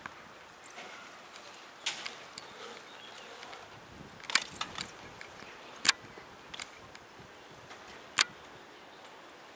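Mountain bike rolling over an asphalt pump track: scattered sharp clicks and knocks from the chain and frame rattling as it rides the rollers and lands small jumps, over a faint steady hiss.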